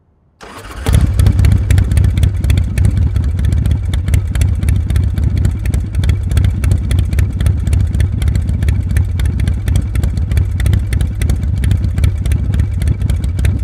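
Motorcycle engine running loudly and steadily with rapid, even firing pulses over a deep rumble, coming in about half a second in and growing louder just before a second.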